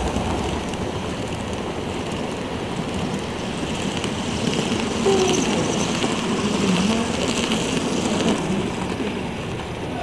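N scale model passenger train running past on its track: a steady rolling rumble of wheels on rails that swells in the middle as the cars go by, with faint voices behind it.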